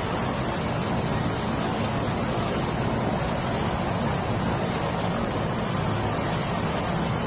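Helicopter engine and rotor noise, a steady loud rush with a low rumble underneath.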